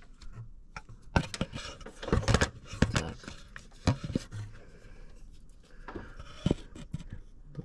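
Handling noises: a scattering of light clicks and knocks with some scraping and rubbing, the sharpest cluster a couple of seconds in and another single knock near the end.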